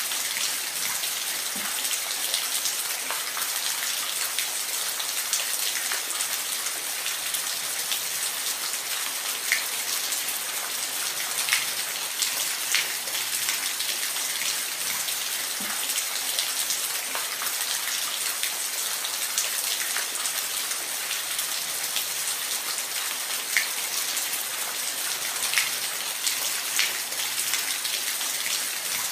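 Steady rain falling, a constant hiss with scattered louder individual drops ticking on a surface.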